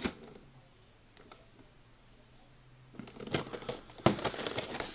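Thin plastic blister packaging being handled: quiet at first, then from about three seconds in a run of crinkles and light clicks as the pack is gripped and moved.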